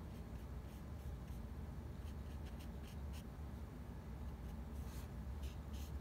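Faint, short scratchy strokes of a pen on paper, coming in small clusters, over a steady low hum.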